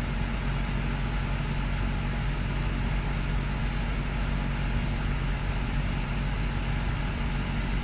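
Steady low mechanical hum over an even hiss, unchanging throughout, like a running motor or engine.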